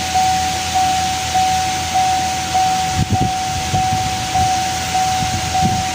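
Car's electronic warning chime sounding over and over, one steady tone repeating about every 0.6 s, with a steady hiss underneath.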